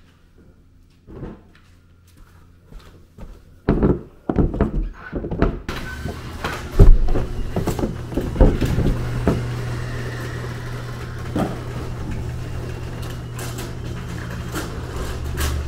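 A few knocks and thumps, then about six seconds in an electric garage door opener starts and runs steadily as the sectional door rolls up.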